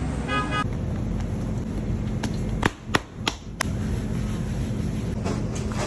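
Steady low background hum, with four sharp clicks or knocks in quick succession about two and a half to three and a half seconds in.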